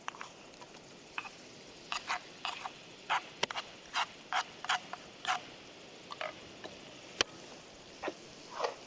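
Short scraping strokes of a cooking utensil, irregular at about one or two a second, with one sharp knock about seven seconds in.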